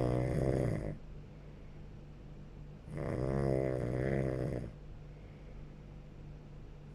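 A sleeping person snoring, with each long, pitched snore about four seconds apart. One snore tails off about a second in, a full one comes in the middle, and another begins at the very end.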